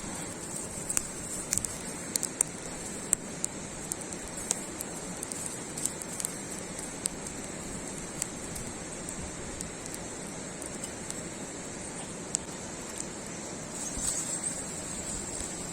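Wood campfire crackling: irregular sharp pops and snaps over a steady hiss.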